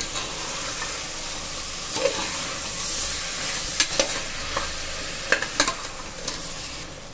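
Chopped potatoes, carrots and beans sizzling in ghee and oil with onion-tomato masala in an aluminium pressure cooker as they are stirred, with a few sharp clinks of a metal slotted ladle against the pot.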